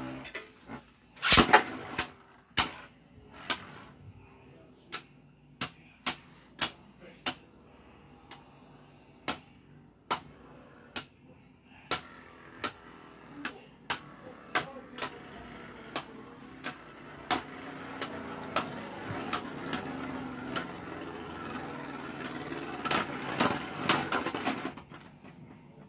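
Two Beyblade Burst spinning tops battling in a plastic stadium: a loud clack about a second in, then repeated sharp clacks as the tops collide, over a steady whir of the spinning tops on the stadium floor. The whir and clacking grow louder in the last several seconds and stop just before the end, as both tops spin out almost together.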